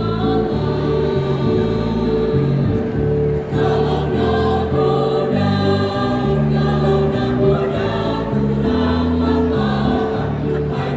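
A choir singing in harmony over an accompaniment of held low notes that change in steps.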